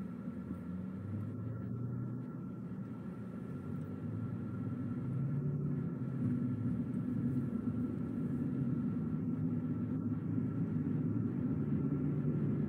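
Car driving along the road: a steady low rumble of engine and tyres, getting louder over the first several seconds, with a faint steady whine above it.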